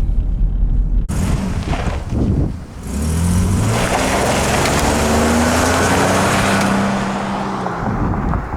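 Car engine accelerating: it revs up about three seconds in, holds at a steady pitch with a loud rush of noise over it, and fades toward the end.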